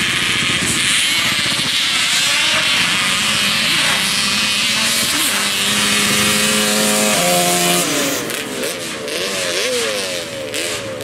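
Two ATV engines at full throttle down a dirt drag strip. The engine note winds steadily higher, then climbs and drops several times in quick succession near the end.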